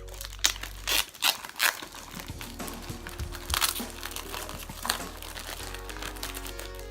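Crinkling and rustling of the instruction manual and its packaging being handled, in a series of sharp crackles, densest in the first two seconds, with background music playing underneath.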